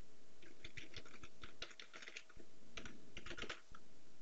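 Computer keyboard being typed on: faint, quick irregular runs of key clicks with short pauses between them.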